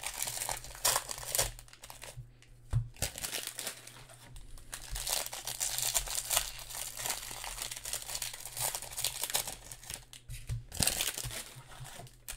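Plastic-foil trading-card pack wrappers crinkling and crackling as a handful of Panini Mosaic basketball packs is handled and shuffled, an irregular run of crackles with a couple of short lulls.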